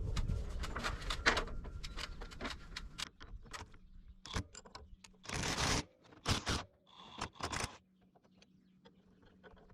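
Light clicks and knocks of tools and parts being handled, followed by a few short scraping noises, then quiet near the end.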